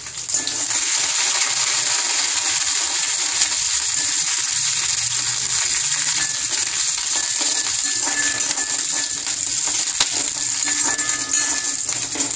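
Mustard seeds, urad dal and dried red chillies sizzling steadily in hot oil in a kadai as a tempering, with small crackles and the light scrape of a spatula stirring them.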